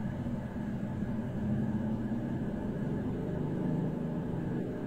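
Steady low background rumble with no speech: room noise in an office, picked up by a phone microphone.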